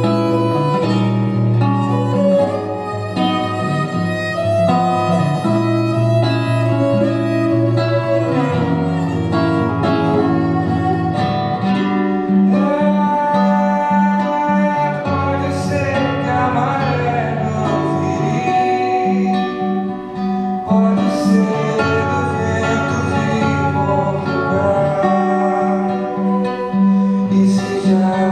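A live acoustic guitar playing a song, with a man singing over it at times.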